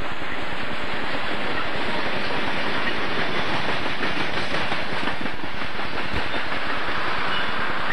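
Boxcars of a freight train rolling past close by: a steady, loud rumble with a constant clatter of steel wheels on the rails.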